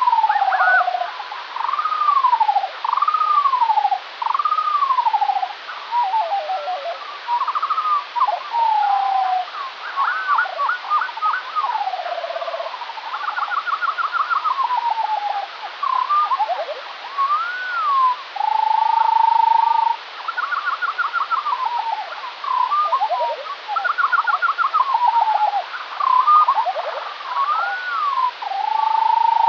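Skylark song slowed to a quarter of its speed, so it sits about two octaves lower than in life: an unbroken stream of arching whistled glides, quick stuttering note series and a few held tones, one at the middle and one near the end. Slowed this far, the uploader likens it to a modular synthesizer patch.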